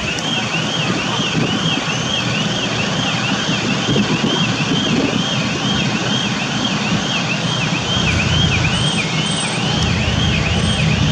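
Level-crossing warning signal sounding a repeated electronic warble, about two cycles a second, over the steady low running of a TU2 narrow-gauge diesel locomotive pulling away, its engine growing louder near the end.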